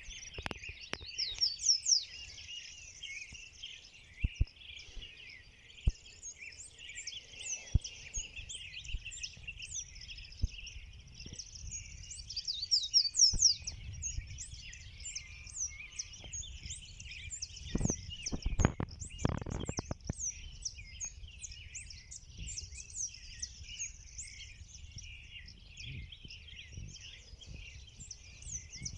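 A dawn chorus of many birds chirping and calling over one another. A few low thumps come about two-thirds of the way through.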